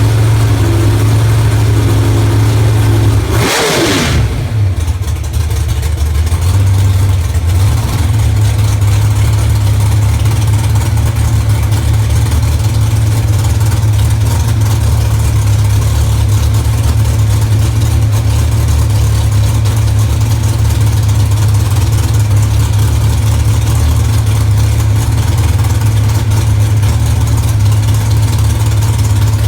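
604 cubic-inch Mopar big-block V8 of an ex-Pro Stock Dodge Stratus drag car running at a steady, loud idle through its exhaust, with one brief burst of noise about three and a half seconds in.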